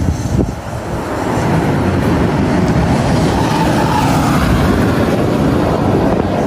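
BYD YangWang U9 electric hypercar passing at speed, its tyre and wind noise swelling about the middle as it goes by, then fading as it draws away.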